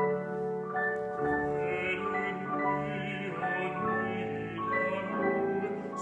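Live classical chamber music: a grand piano and a bowed cello playing, with operatic singing.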